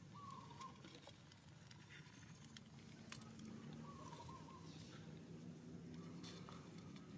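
Near silence: faint outdoor background with scattered soft clicks and two faint, short wavering chirps, one near the start and one about four seconds in.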